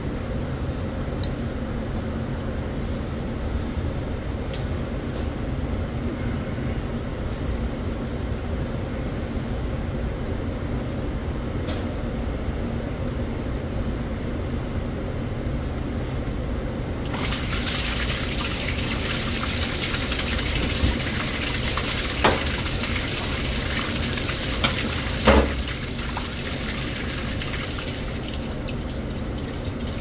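Low steady hum of kitchen machinery, then a little over halfway in, a sudden rush of backed-up wastewater gushing out of an opened plastic drain cleanout and splashing onto a tile floor, with a few sharp knocks.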